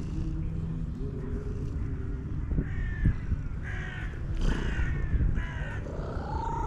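A run of about five short, harsh animal calls, then one longer call that rises and falls near the end, over a steady low rumble.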